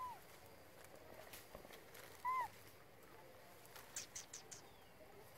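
Two short calls that rise and fall in pitch, one at the start and a louder one a little past two seconds in, then a quick run of four or five high chirps around four seconds in, over faint outdoor background.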